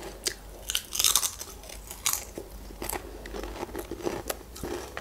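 A bite into a Pringles potato crisp, close to the microphone: a burst of loud crunching about a second in, then crunchy chewing in short, scattered crackles.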